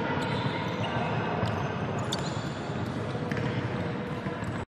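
Basketballs bouncing on a wooden sports-hall floor as children dribble, the thuds echoing in the large hall, with children's voices in the background. The sound cuts off suddenly near the end.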